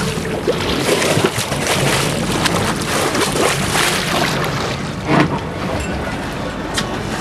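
Wind buffeting the microphone and water sloshing against the hull of a fishing boat, with the boat's engine running low underneath. There is a single louder knock about five seconds in.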